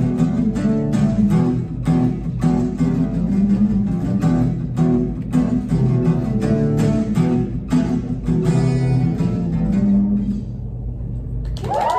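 Acoustic guitar strummed in a steady rhythm as an instrumental outro, closing on a final chord that rings out about ten seconds in. Listeners start cheering and whooping right at the end.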